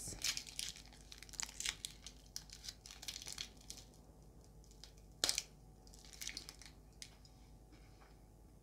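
Foil-and-paper chocolate wrapper crinkling as it is peeled back, then a single sharp snap a little after five seconds in as a dark chocolate wafer bar is bitten, followed by a few soft crunches.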